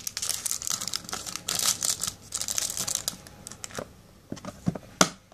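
Small plastic pearl beads pouring and rattling into a clear plastic bead-organizer box: a dense patter of tiny clicks for about three seconds, then a few separate plastic clicks, the sharpest near the end.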